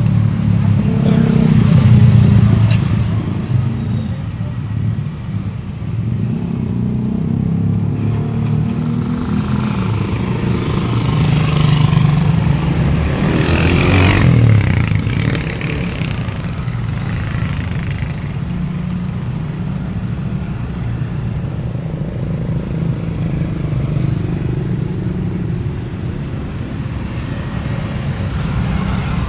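Road traffic on a city street: a continuous engine and tyre rumble with vehicles passing one after another, the loudest passing close by about halfway through.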